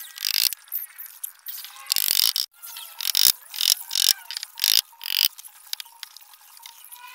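A run of short, sharp clattering and rasping noises, about seven in quick irregular succession, from hand work on a plywood box carcass.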